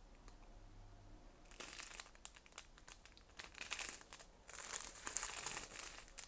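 Small clear plastic bags of diamond-painting drills crinkling as they are handled and flipped through. It starts about a second and a half in and comes in two spells with a brief lull between them.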